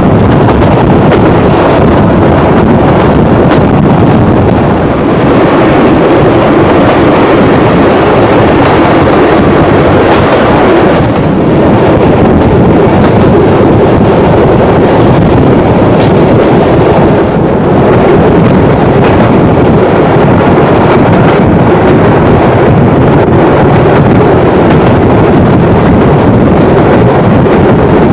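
Steam-hauled passenger train running along the line, heard from an open coach window: a loud, steady rush of running noise with wind buffeting the microphone.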